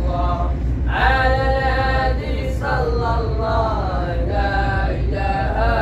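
Arabic Islamic devotional song (madih praising the Prophet) sung by male voice, chanting long held notes that slide from one pitch to the next.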